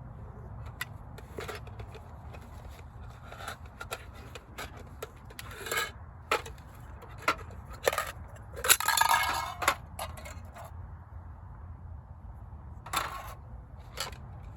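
Irregular clicks, knocks and scrapes from small objects being handled, with a louder rustle lasting about a second near the middle, over a steady low hum.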